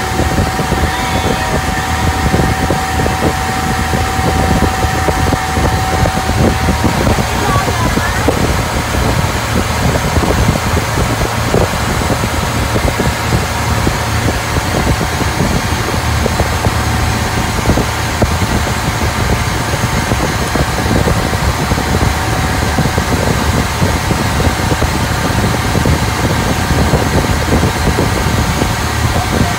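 Outrigger boat's engine running steadily under way: a loud, continuous low drone under a rushing haze. A steady higher tone rides on it for the first several seconds, fades out, and comes back near the end.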